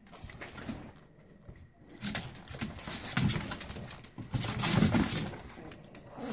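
Pug puppies play-biting and pawing at a hand, making small puppy growls and snuffles over the rustling of towels. It is faint at first and grows louder and busier from about two seconds in.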